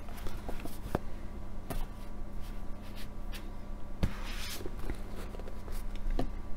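Paperback books being handled: a few soft knocks as one is set down on a stack and another picked up, and a brief rustle of paper about four seconds in, over a steady low hum.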